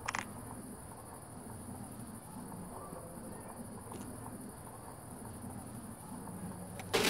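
Night ambience of crickets chirring steadily at a high pitch. A short, loud burst of sound comes near the end.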